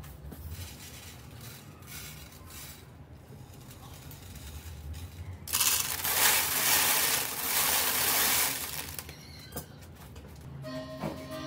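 Dry grain poured from a bowl, falling through a wire-mesh lid into a plastic tub and scattering over a wooden ramp and tiled floor: a loud, dense rattle of many small hard grains that starts about five seconds in and lasts about three seconds.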